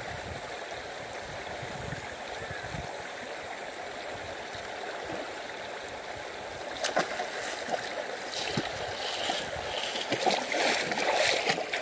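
Steady sound of flowing river water. About seven seconds in there is a sharp knock, followed by irregular splashing as someone wades through the water.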